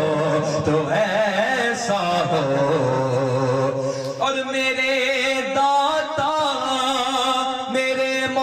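A man singing a Sufi devotional Urdu poem through a microphone, drawing out long, wavering melismatic notes; a new held note starts a little past halfway.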